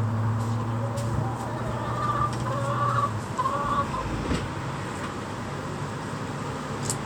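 Backyard chickens clucking softly as they feed, with a few sharp taps, over a steady low hum that stops about three seconds in.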